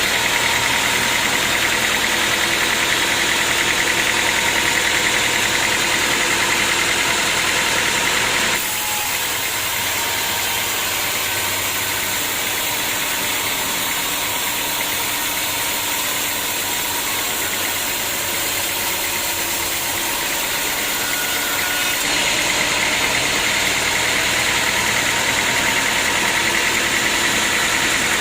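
Sawmill machinery running steadily with a dense mechanical noise. The sound changes abruptly about a third of the way in and again near the end.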